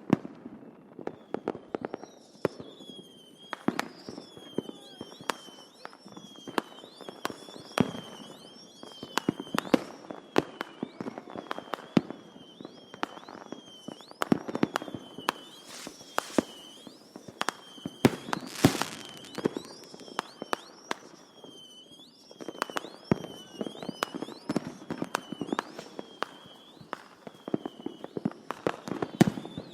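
Distant fireworks going off: an irregular run of bangs and crackles, dense and overlapping, with a short echo after the louder ones. A repeated high chirp sounds behind them for much of the time.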